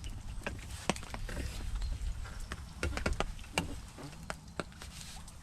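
Scattered light taps and clicks at irregular intervals over a steady low rumble of wind on the microphone.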